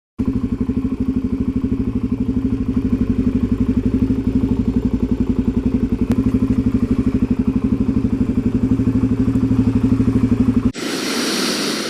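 An engine idling steadily, a rapid even pulse of about ten beats a second, starting abruptly and cutting off sharply near the end.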